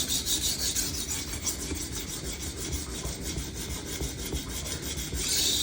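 Kitchen knife steel being stroked back and forth on a 400-grit Atoma diamond sharpening plate, a steady rasping scrape that pulses with each quick stroke. The blade is being refined after the coarse 140-grit plate.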